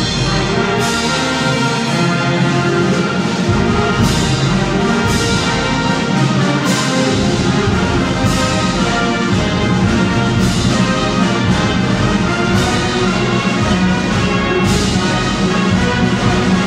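Municipal wind band playing, full brass and woodwinds sounding together with sharp accents every second or two.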